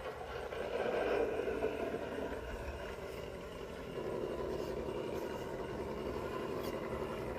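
Radio-controlled rock crawler driving slowly over an obstacle, its electric motor and geared drivetrain giving a steady whine that rises a little about a second in and again about four seconds in.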